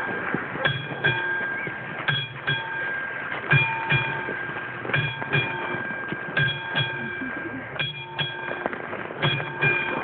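Railway level-crossing warning bell ringing in a steady pattern of double strikes, a pair about every second and a half, signalling that a train is approaching the crossing.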